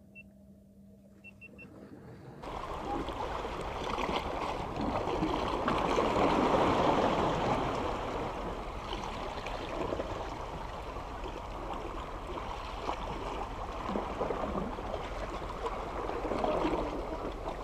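Water washing and gurgling against the shoreline rocks, a steady rushing noise that sets in about two seconds in and swells for a while midway. It is preceded by a quiet moment with a few faint high beeps.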